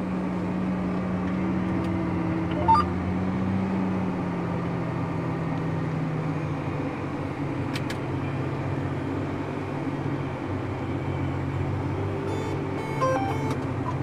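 John Deere 8335R tractor's diesel engine running steadily, heard from inside the cab while it pulls a planter across the field. Its pitch dips slightly about halfway through, and there are a couple of brief clicks.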